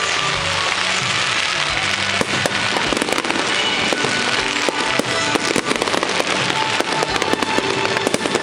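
A fireworks display going off: a rapid, dense string of sharp bangs and crackles that thickens about two seconds in, over loud show music.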